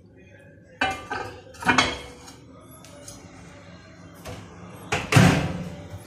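A glass bowl set down with a few clinks inside a microwave oven, then the IFB microwave's door swung shut with a heavy thud about five seconds in, the loudest sound.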